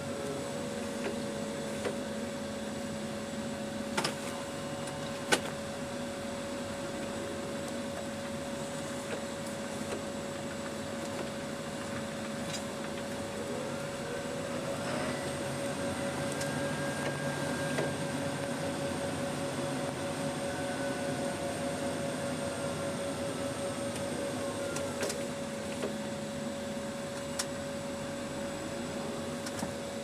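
A big tractor's engine running steadily, heard from inside the cab, with a constant whine over the drone and two sharp knocks about four and five seconds in.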